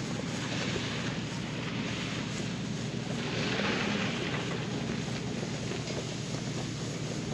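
Pickup truck engines running under load during a strap recovery, as a stuck two-wheel-drive Ford F-150 is towed backward out of soft ground. The sound is steady and builds slightly about three to four seconds in.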